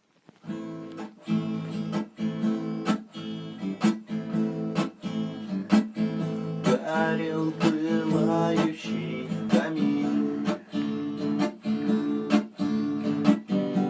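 Acoustic guitar strummed in a steady rhythm, playing the chord introduction of a song before the singing comes in; it starts about half a second in.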